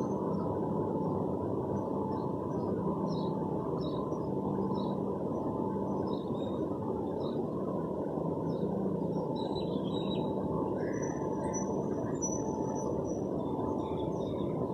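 Steady traffic noise with a faint hum, unchanging throughout, with scattered brief, faint high chirps.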